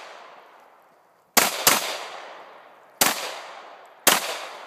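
Four shots from a Glock 19 Gen 3 pistol with maritime spring cups, fired under water: two in quick succession about a second and a half in, then two more a second or so apart, each sharp crack trailing off over about a second.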